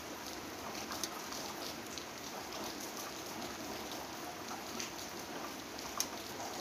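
Steady rain, with scattered raindrops tapping close by; the sharpest tap comes about six seconds in.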